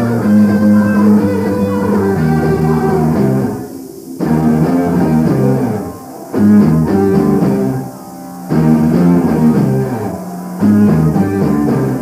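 Rock band playing live, with electric guitar and bass in a loud stop-start riff: phrases of about two seconds, each broken by a short drop in level.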